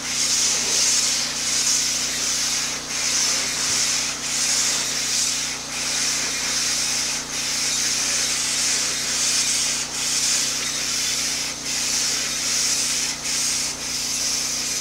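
High-pressure water jet from a pressure-washer wand hissing against a louvered fence, washing moss off it. The hiss dips briefly about every second and a half, over a faint low steady hum.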